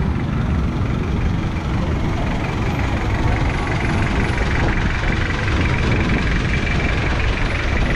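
Diesel vehicle engine idling with a steady low rumble, amid street traffic.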